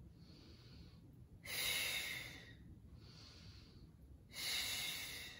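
A woman breathing hard with the effort of an abdominal exercise. There are two strong exhales, one about a second and a half in and one near the end, each about a second long, with softer inhales between them.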